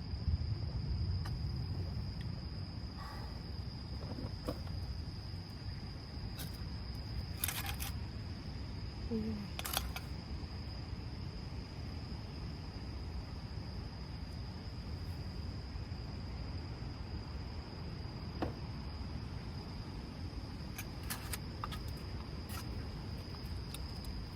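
Insects, most likely crickets, trilling as one steady high tone, over a low rumble of wind on the microphone. A few sharp clicks sound near the middle and again near the end.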